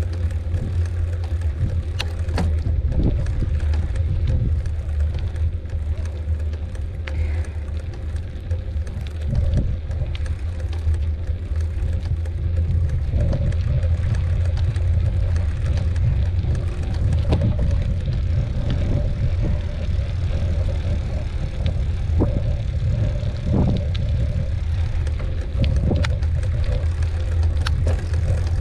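Mountain bike rolling along a dirt trail: a steady low rumble of wind on the microphone and tyres on the ground, with scattered sharp clicks and knocks from the bike over rough ground.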